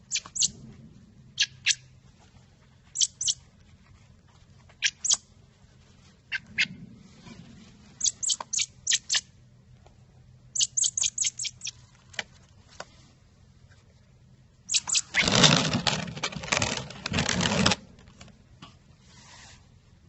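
Fledgling bird giving short high-pitched begging chirps, singly and in quick runs of four or five, while being hand-fed. About fifteen seconds in, a loud burst of noise lasts nearly three seconds and is the loudest thing heard.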